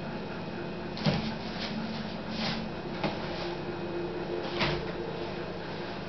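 A plastic-wrapped bundle handled at a wooden countertop: a few short plastic crinkles and knocks. The sharpest knock comes about a second in and another about four and a half seconds in, over a steady low hum.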